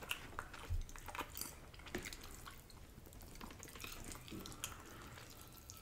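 Faint eating sounds: scattered small wet mouth clicks and smacks, with a few light taps of a fork on a plate.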